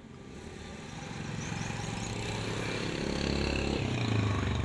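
A motor vehicle engine, most like a motorcycle, running and growing steadily louder as it approaches, loudest near the end.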